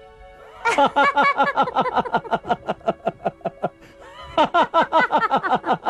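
Laughter in two long runs of quick, rhythmic ha-ha pulses. The first starts about half a second in and trails off, and the second begins a little past the middle. Faint background music plays under it.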